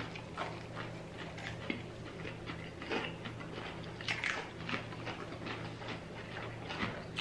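Two people chewing and crunching food, with short crisp crunches scattered throughout as they bite into fresh cucumber spears and deep-fried seafood, the strongest about three and four seconds in. A faint steady low hum lies underneath.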